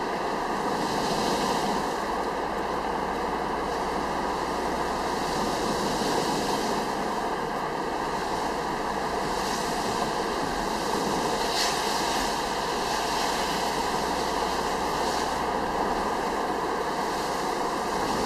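Steady hiss of car tyres on a wet road, with a low hum of the car running, heard from inside the moving car; a few brief louder swishes stand out.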